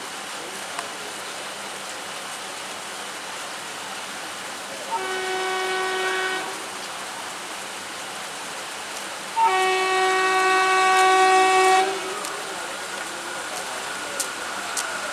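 WAP-4 electric locomotive's air horn sounding twice: a shorter blast about five seconds in and a longer, louder one about nine and a half seconds in, over a steady hiss of heavy rain.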